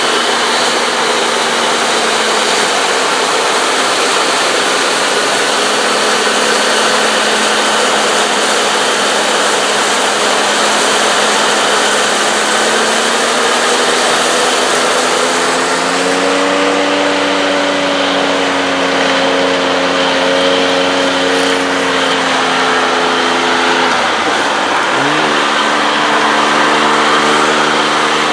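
Large diesel engines of harvesting machines working under load, running steadily over a dense rushing noise. The engine note climbs about halfway through, dips sharply a few seconds before the end and comes straight back up.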